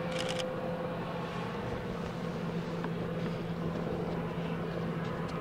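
Bombardier Global 6000's twin Rolls-Royce BR710 turbofans running at low power as the business jet rolls out along the runway after landing: a steady jet hum with a low held tone. A short burst of rapid high clicks comes right at the start.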